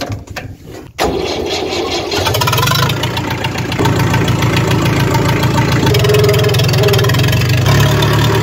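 Old tractor's diesel engine running loud with no silencer, a rapid, harsh exhaust beat. It comes in abruptly about a second in and gets heavier and louder about two seconds in as the tractor gets under way.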